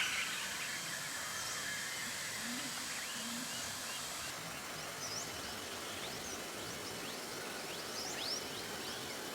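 Rainforest ambience: a steady hiss with many short bird chirps and whistles scattered over it, a loud falling chirp right at the start and a few quick rising whistles near the end.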